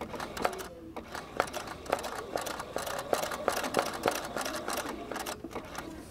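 Domestic sewing machine stitching slowly through a silk-ribbon rose on hooped fabric, giving a run of light mechanical clicks.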